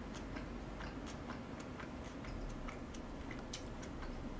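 Faint, irregular light clicks, a few a second, over a low steady room hum.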